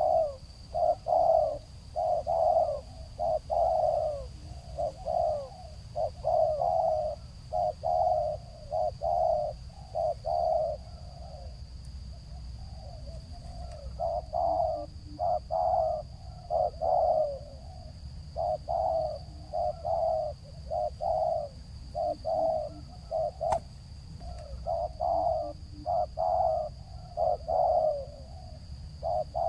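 Spotted dove (tekukur) cooing in a long run of repeated low coos, a few notes a second, with a softer lull about eleven seconds in before it picks up again. This is the stuttering 'gagap' song style named in the title.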